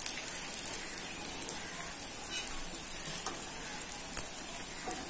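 Rice-flour fritters deep-frying in hot oil, a steady sizzle, with a few light clicks as a metal spoon and wire skimmer move them in the pan.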